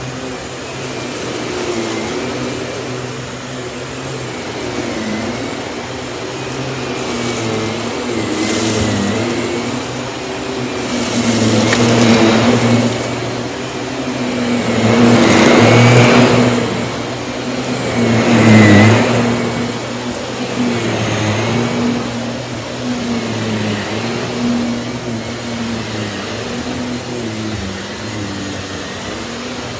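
Miele S194 Quick Step stick vacuum running continuously as it is pushed back and forth, its motor hum and whine dipping slightly in pitch and recovering as the nozzle moves. It gets louder and rougher in three surges, about twelve, sixteen and nineteen seconds in.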